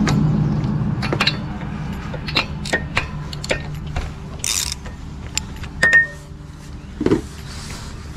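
Ratchet wrench clicking in short irregular runs as a spark plug is unscrewed from a lawn mower's V-twin engine, after a dull rumble of handling in the first second or so.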